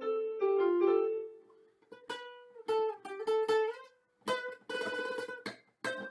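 Electronic keyboard notes held and dying away over the first second or two, then a classical guitar played with plucked notes and chords.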